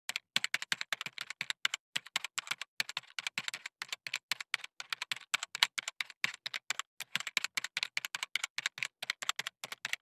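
Rapid, irregular clicking of keyboard typing, about five or six keystrokes a second, running without pause.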